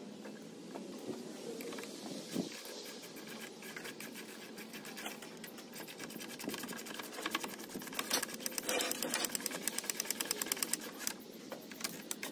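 Power driver running lag bolts into the wooden gazebo frame. It makes a fast, even clatter through the second half that stops shortly before the end, with quieter handling noises before it.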